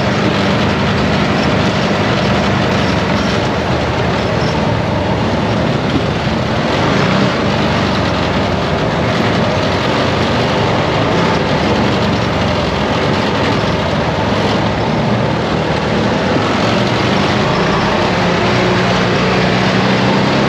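ATV engine running steadily while riding along a trail, with an even rushing rumble over it.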